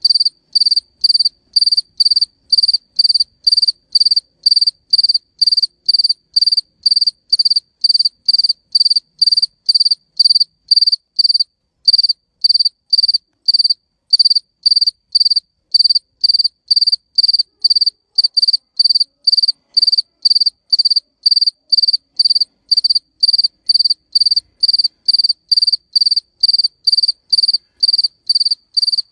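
A cricket chirping by rubbing its wings together, loud and close. It keeps up a steady, evenly spaced run of short, high-pitched chirps, about two a second.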